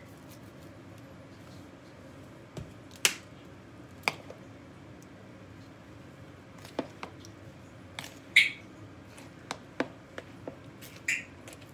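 Hands mixing a ground ham mixture in a plastic bowl: a scattering of short, soft clicks and squishes at irregular intervals over a faint steady background noise.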